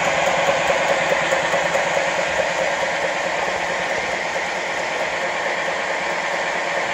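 LBSC 'Vera' live-steam model tank locomotive running on a stand with its wheels turning free, steam exhausting from the chimney in a loud, steady hiss.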